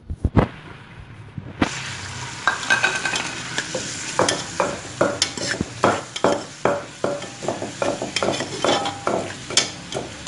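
Freshly added sliced onions frying in hot ghee in a metal pot, a steady sizzle that comes in about a second and a half in. A metal ladle stirs them, knocking and scraping against the pot again and again.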